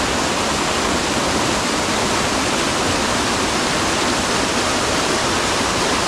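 Water of a partly frozen mountain stream rushing, a steady full rush of flowing water.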